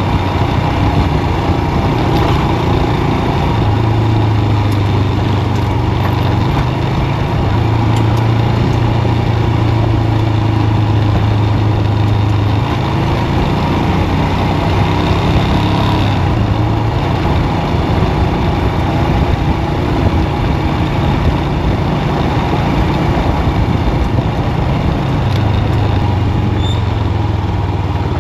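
Motorcycle engine running steadily while riding along a dirt track, its note swelling and easing a little with the throttle, over constant wind and road noise.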